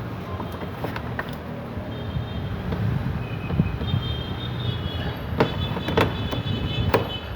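Three sharp clicks in the second half, from hand work on a car's plastic door trim panel, over a steady background rumble with a faint high whine.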